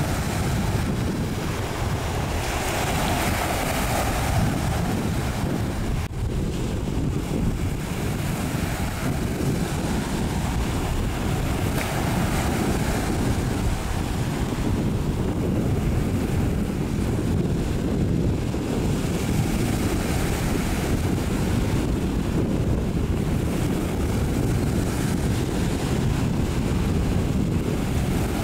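Steady wind rumbling on the microphone over the wash of the sea.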